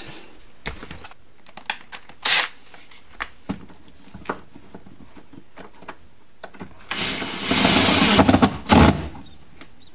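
Light taps and clicks of parts being handled, then a small power tool runs for about a second and a half and once more briefly near the end.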